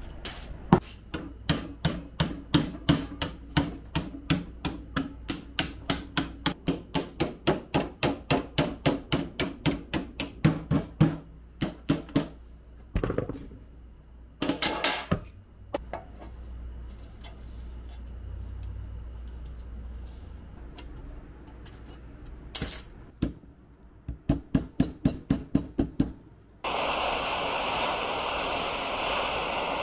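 Tin snips cutting sheet metal, a fast even run of sharp clicks, about three a second, for some ten seconds. A few scattered knocks and a second short run of clicks follow. Near the end a handheld gas torch lights with a sudden, steady loud hiss of flame.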